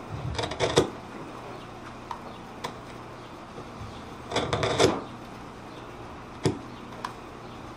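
Two short bursts of rapid clicking and rattling, about a second in and around the middle, then two single clicks near the end: close handling noise from a wireless microphone transmitter pack as its battery is being changed.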